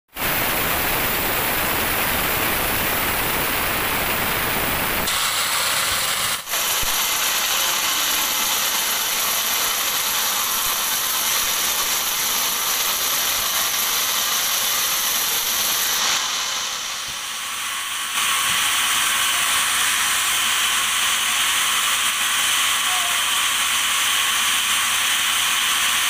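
Band sawmill blade cutting through a teak log: a steady, mostly high-pitched noise that changes abruptly about five seconds in, again shortly after, and dips for a couple of seconds around sixteen seconds in.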